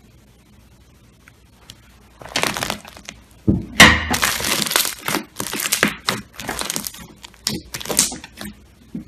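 Slime being pressed and squeezed by hand. It gives a string of short, noisy bursts that starts about two seconds in and stops shortly before the end.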